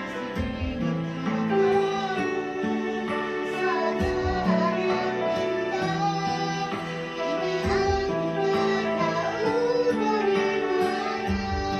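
A voice singing a melody over an accompaniment with plucked guitar, holding notes and sliding between pitches.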